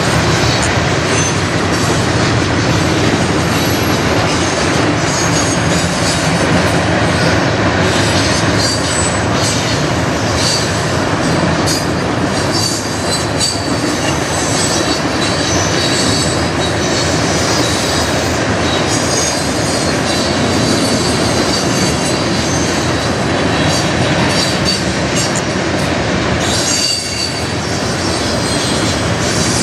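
Freight train's covered hopper and tank cars rolling past: a steady heavy rumble of steel wheels on rail, with short high-pitched wheel squeals coming and going.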